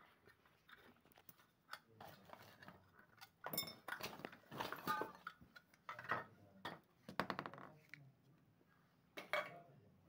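Faint clinks, clicks and rattles of small metal parts and a tool being handled, in scattered clusters.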